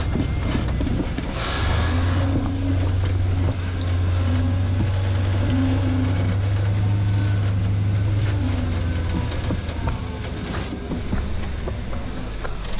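Rock crawler buggy's engine working under load as it climbs a steep rock face, held at steady revs for several seconds and easing off near the end.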